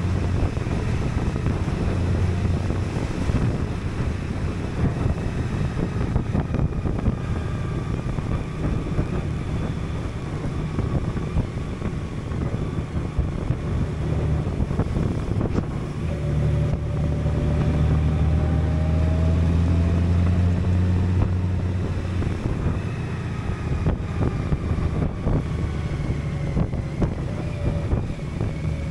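Honda Gold Wing's flat-six engine running steadily at road speed, with wind rushing over the bike-mounted camera's microphone. The engine hum swells for a few seconds just past the middle.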